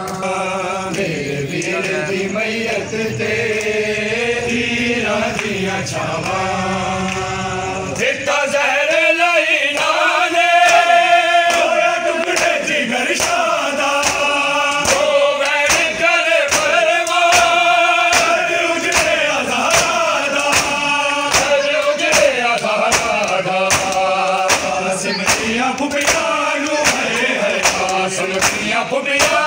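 Group of men chanting a Punjabi noha in unison, with a steady beat of open-hand slaps on bare chests (matam). About eight seconds in, the chanting gets louder and the slaps become sharp and regular.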